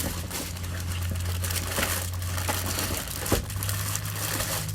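Rummaging through a bag of slime add-ins: a dense, irregular crinkling and rustling of plastic bags and packets being handled, over a steady low hum.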